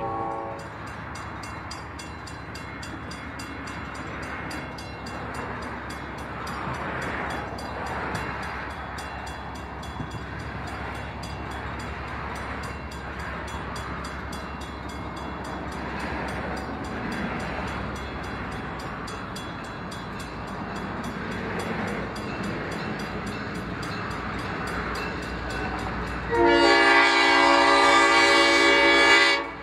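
A train running past with a steady rumble and rail noise, its locomotive horn giving a brief toot at the start and a long blast of about three seconds near the end, the loudest sound here.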